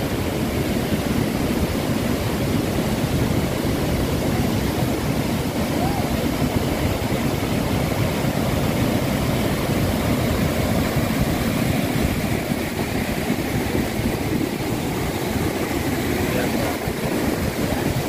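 Waterfall: a steady, deep rush of falling water.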